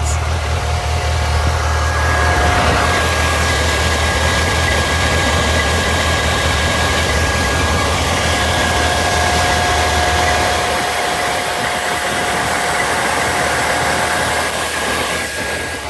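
Suzuki GSX1250FA's 1255 cc inline-four engine running steadily on the centre stand, in gear with the rear wheel and chain turning, while the radiator cooling fan runs, adding a steady whine. The chain is slack and in need of adjustment.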